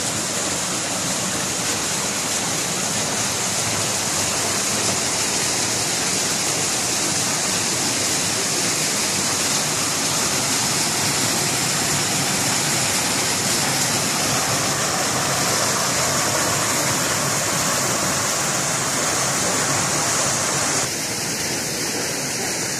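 Steady rush of running water splashing into a shallow pool. Near the end the sound changes abruptly and becomes slightly quieter.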